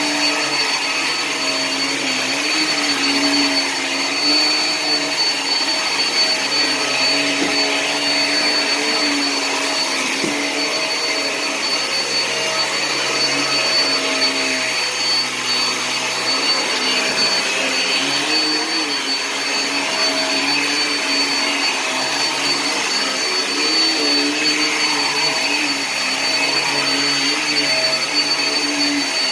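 Hoover React vacuum cleaner running on carpet: a steady motor whine with a thin high tone, its lower pitch wavering a little as it works.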